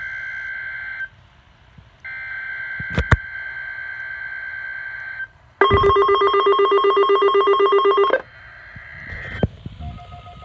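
NOAA Weather Radio's SAME digital header data bursts, a buzzy electronic warble, come first as a short burst and then a longer one, with two sharp clicks in between. About halfway through, a weather-alert receiver, triggered by the header, sounds a loud, rapidly pulsing alarm beep for about two and a half seconds.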